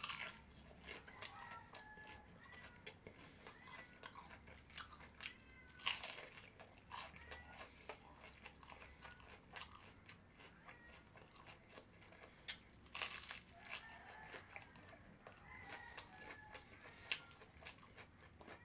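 A person biting into and chewing crisp fried breaded food close to the microphone: repeated crunches and mouth clicks, with two sharper crunching bites about six and thirteen seconds in.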